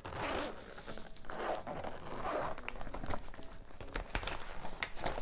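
The zip of a large polyester cosmetic case being drawn open in a few rasping pulls, with the fabric rustling as it is handled and a few small clicks near the end.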